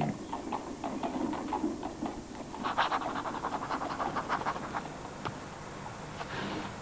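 Quill pen scratching across paper in short, irregular strokes, thinning out to a faint steady hiss near the end.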